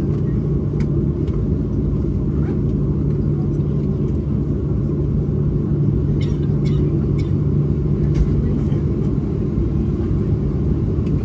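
Steady low rumble and hum of jet engines heard inside the passenger cabin of a Boeing 737 airliner, with a few faint clicks.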